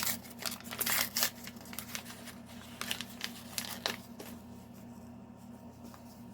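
Plastic toy packaging crinkling and rustling as small plastic figures are pulled out of it by hand. The rustling is busiest for about the first four seconds, then thins out to a few quieter rustles.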